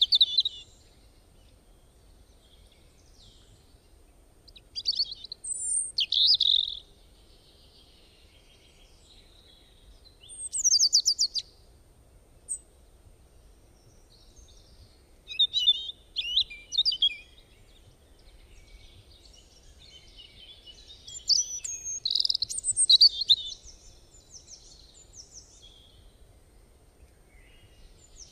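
Wild birds calling in short bursts of high chirps and whistled notes, a phrase every few seconds, with a longer, busier run of calls about three quarters of the way through.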